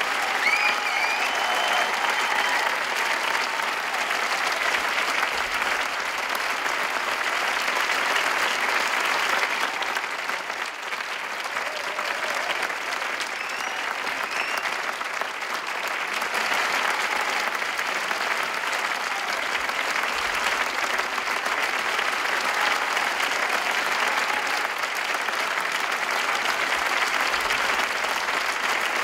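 A large theatre audience applauding, dense and sustained, easing slightly about ten seconds in before building again, with a few faint cheers on top.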